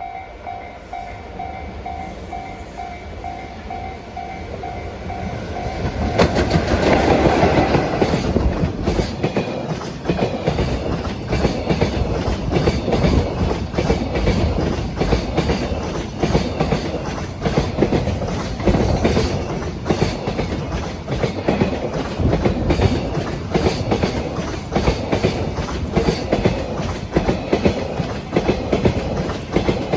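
A level-crossing warning bell rings in quick pulses, about two a second. At about six seconds an EF66 electric locomotive arrives loudly, and its train of container wagons rolls past with a steady clickety-clack of wheels over the rail joints.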